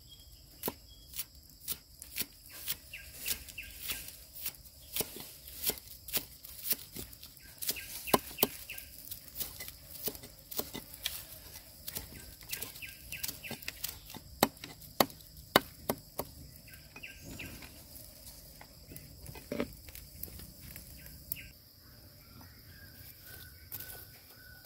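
Knife chopping on a cutting board: sharp strokes about two a second, thinning out after about sixteen seconds. A steady high insect drone runs underneath.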